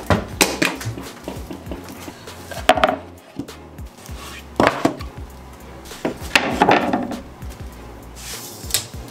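Flat wooden boards being set down and slid on a wooden workbench: a series of separate knocks and clatters of wood on wood.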